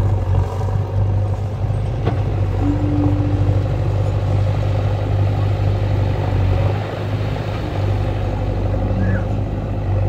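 JCB backhoe loader's diesel engine running steadily as the machine pushes its front bucket through floating pond weed. A single knock about two seconds in and a short steady tone soon after.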